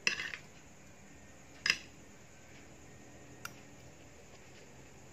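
A fork clicking and clinking against a plate: a sharp click right at the start, the loudest, another under two seconds in, and a faint one about three and a half seconds in.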